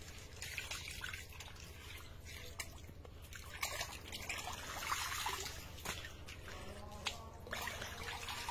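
Banana leaf being rinsed in pond water by hand: irregular small splashes and drips of water running off the leaf.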